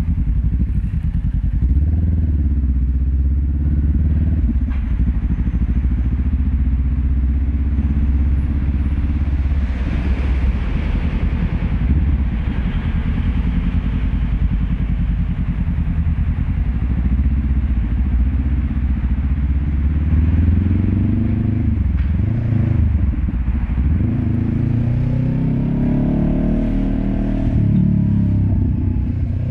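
Honda CB500X's parallel-twin engine through a LeoVince LV10 slip-on exhaust, heard from a microphone at the exhaust, running at low revs with a deep, bassy note while riding slowly. From about 20 seconds in, the revs rise and fall a few times.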